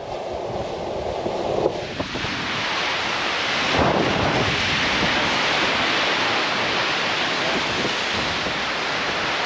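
Sea surf washing against the rocks below the cliff: a steady rushing noise that builds over the first two seconds and swells about four seconds in, with wind buffeting the microphone.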